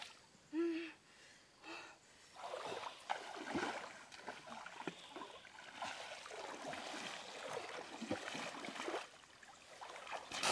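Shallow river water splashing and sloshing as a woven bamboo basket fish trap is pushed down into the stream and heaved up, with water pouring off it, in uneven surges. A short pitched sound comes about half a second in.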